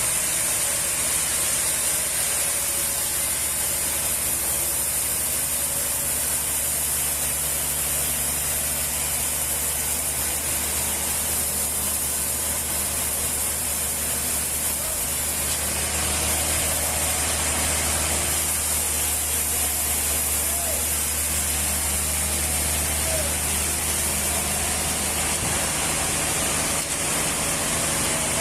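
Machinery running steadily: a constant low mechanical hum under a high, even hiss.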